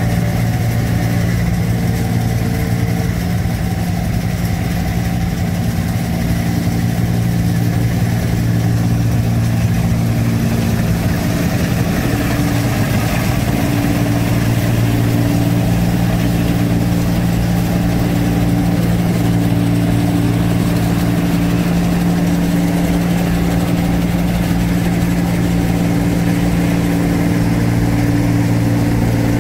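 New Holland 1545 S tracked combine harvester harvesting rice: its diesel engine and machinery running steadily with a loud, even low hum.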